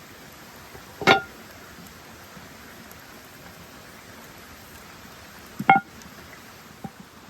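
Two sharp clinks of hard kitchenware, each with a brief ringing tone, about a second in and again near six seconds, over a steady hiss of rain and river water.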